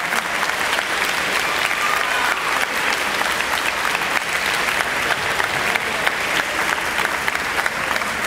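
Audience of students applauding, many hands clapping steadily throughout.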